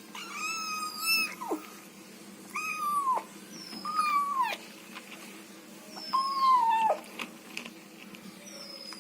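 Kitten making high-pitched mewing calls while eating: four calls, each held steady and then dropping sharply in pitch at the end, with a few faint ticks near the end.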